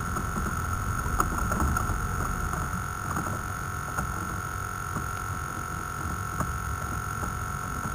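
Low rumble of wind on the microphone over a steady high hum, with a few faint clicks scattered through.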